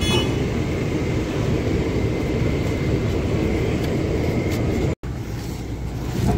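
Docked passenger ferry's engines running with a steady low rumble and a faint thin whine above it. The sound cuts out for an instant about five seconds in.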